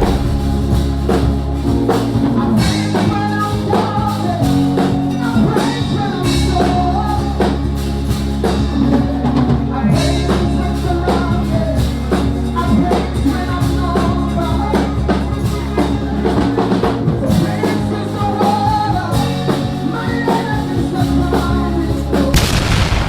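Music with a drum kit and a steady bass line, the bass notes changing every few seconds under a melody.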